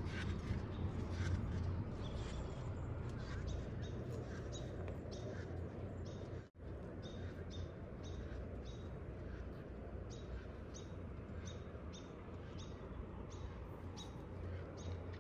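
A bird's short, high chirp repeated at a steady pace, well over a dozen times, starting a few seconds in, over a steady low rumble.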